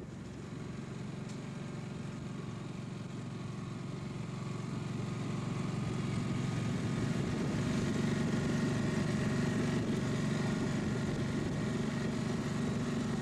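A small sailing boat's outboard motor running steadily under way, its pitch even, growing louder over the first several seconds and then holding.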